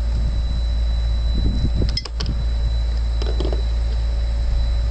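Steady low mechanical hum in the background, with a few light clicks and scrapes about one and a half to two seconds in as a screwdriver works at the plastic engine housing of a Stihl MM55 two-stroke power sweeper, the sharpest click near two seconds.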